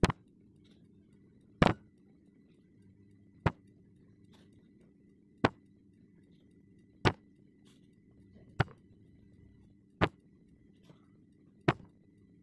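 Molded lumps of kinetic sand dropped one at a time into a tall drinking glass, each landing with a short thud on the glass bottom or on the lumps already in it: eight drops, about one every one and a half to two seconds.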